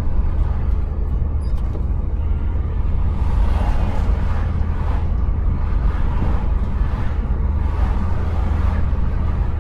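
Car driving on the open road, heard from inside the cabin: a steady low rumble of engine, tyres and wind, with a rushing hiss that swells and fades over and over from about three seconds in.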